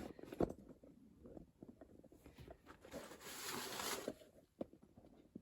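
Faint handling noises: a few light knocks and clicks, with a rustle lasting about a second midway through.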